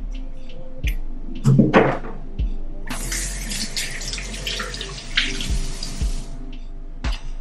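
Kitchen faucet running into the sink for about three seconds, starting about three seconds in. A few knocks and a louder thump come before it.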